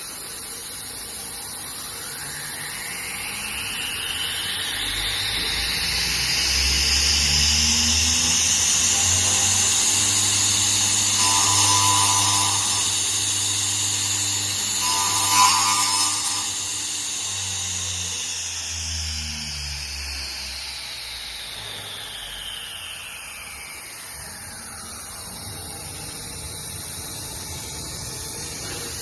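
CNC router's saw spindle motor whining as it spins up over several seconds, holding at speed, then winding down, with lower motor hums shifting pitch in steps underneath. A brief louder burst comes about halfway through.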